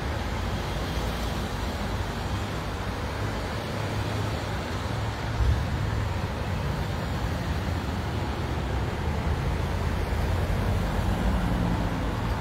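Road vehicles running past: a steady engine hum and road noise, with a brief louder jolt about five and a half seconds in.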